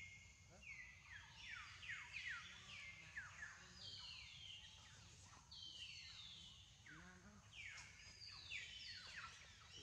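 Birds calling in the forest canopy: many faint, overlapping whistled notes, each sliding down in pitch, repeating over and over.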